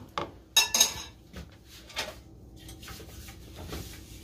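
Metal cookware clattering against a stainless steel pot: two quick ringing clinks a little over half a second in, then a few lighter knocks.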